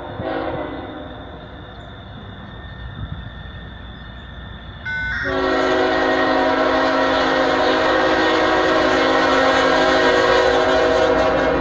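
CSX freight locomotive's air horn on an approaching loaded coal train: a blast dies away at the start, then after about five seconds of low locomotive rumble a single long blast of about six seconds starts suddenly, a chord of several notes held steady.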